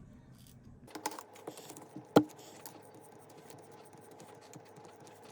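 Small scattered clicks and taps of hand tools working on an opened MacBook Pro laptop, with one sharp, louder click about two seconds in.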